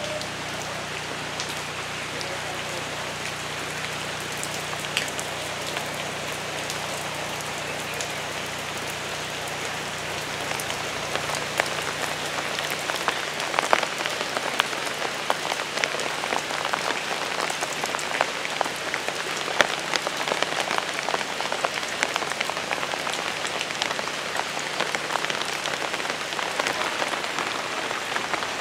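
Steady rain falling on paving and leaves, with many sharp, close drips. It gets louder about eleven seconds in.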